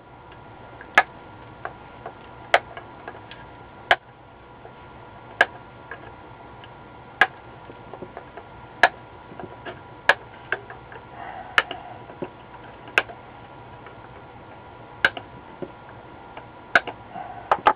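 Diagonal cutters snipping capacitor leads flush on a circuit board: about a dozen sharp snips, one every second or two.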